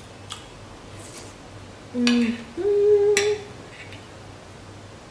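A woman's closed-mouth 'mm-mm' of enjoyment while eating: two held notes, the second higher and longer, about two seconds in. Light clinks of cutlery on a ceramic plate come before and during it.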